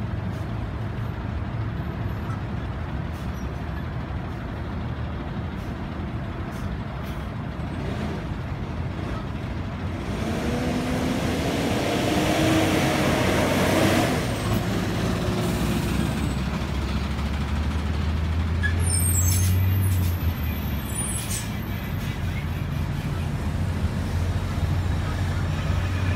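Heavy vehicle engines, a box truck and a bus, idling with a steady low hum. About halfway through, a vehicle pulls past with its engine pitch rising. About three-quarters of the way in there is a brief high-pitched hiss.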